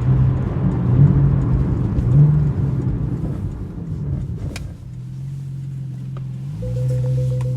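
A Porsche 911 Carrera GTS's 3.8-litre flat-six engine blipping up briefly twice, then settling to a lower, steady run after a sharp click. Near the end a continuous parking-sensor tone starts.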